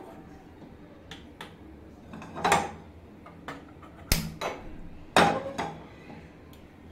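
Sharp clicks and metallic knocks as a gas stove is switched on and a non-stick kadai is shifted on the burner grate. The loudest knocks come about four and five seconds in.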